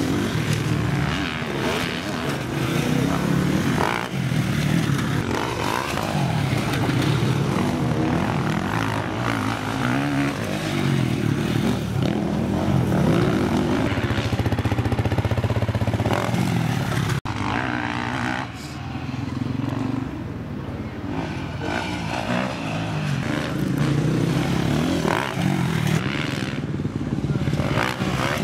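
Motocross dirt bike engines revving hard and backing off as the bikes ride the track and take the jumps, the engine pitch rising and falling throughout.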